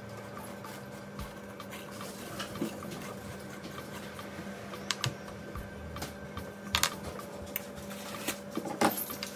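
Spoon scraping the seeds out of a halved Lebanese cucumber on a wooden chopping board: soft wet scrapes and small clicks, with a few sharper clicks of the spoon in the second half.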